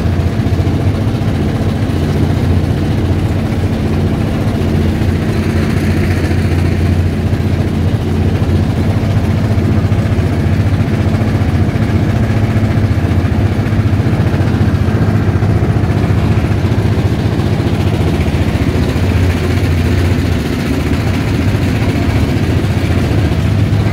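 Engine of a wooden river boat running steadily under way: a low, even hum that holds the same pitch throughout.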